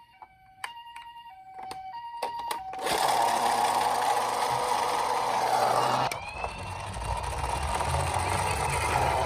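Toy ambulance's electronic two-tone siren alternating high and low about every half second, with small clicks. About three seconds in, a loud whirring, rattling noise of the toy car's wheels running down the slope takes over, then goes on more quietly.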